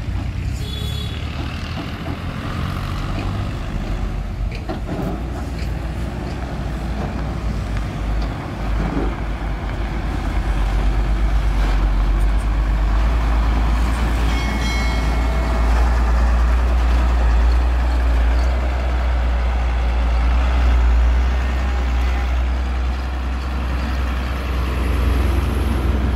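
Heavy diesel truck engine running, a low steady drone that grows louder about ten seconds in as the sand-loaded Hino FG8J dump truck drives close, with a few short knocks and rattles over it.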